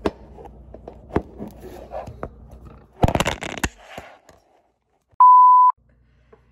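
A metal spoon taps and scrapes as pancake batter is scooped from a mixing bowl into a frying pan, with a louder clatter about three seconds in. About two seconds later there is a single loud, steady electronic beep lasting half a second.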